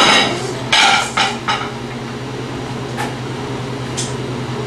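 Dishes and cutlery clattering: a burst of several clanks in the first second and a half, then two lighter clicks, over a steady low hum.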